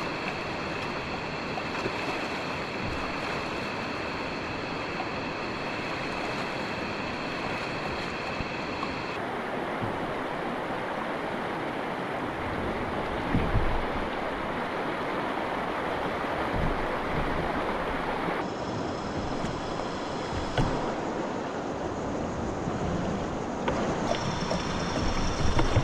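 Shallow river water rushing over rocks in a steady, even wash, changing abruptly twice. There are a few louder thumps, one about halfway through and more near the end.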